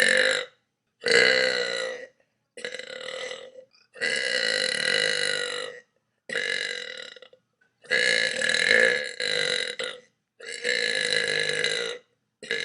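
A string of about eight long, loud, drawn-out burps from a woman, one after another, each lasting one to two seconds with short silent gaps between them.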